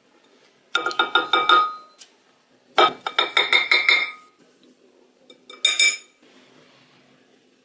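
A utensil striking a ringing bowl in three quick runs of clinks, several strikes a second, the last run short.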